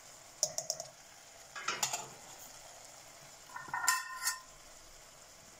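A spoon tapping and clinking against a stainless steel pot as ground spices are tipped onto the cooking squash: a few quick taps about half a second in, a short scrape near two seconds, and a ringing clink near four seconds. A faint steady sizzle from the simmering pot runs underneath.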